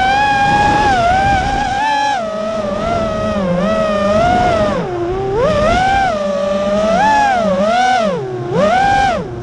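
FPV freestyle quadcopter's brushless motors whining, the pitch swooping up and down several times as the throttle is worked, dropping lowest about five seconds in.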